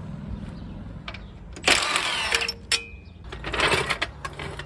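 Two short, loud bursts of a power tool working the seat belt bolts with a 3/4-inch socket, about two seconds apart, over a steady low mechanical hum.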